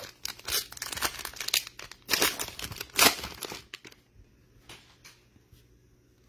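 Select football trading-card pack being torn open, its foil wrapper crinkling and crackling for about four seconds, then a few faint ticks as the cards are handled.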